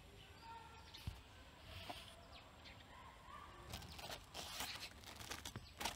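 Faint scraping, rustling and small clicks of a thin dash-camera power cable being pressed by hand into the gap between a car's headliner and windshield trim, the clicks coming thicker in the second half.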